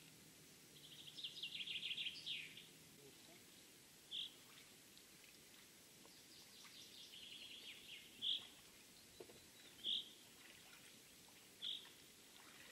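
Songbirds singing faintly: a rapid trilled song about a second in and another near the middle, and a short single call note repeated every second and a half or two from about four seconds in.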